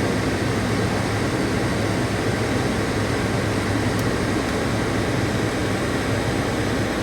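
Steady rush of a car's climate-control blower fan with a low hum of the idling engine, heard from inside the cabin; one faint tick about four seconds in.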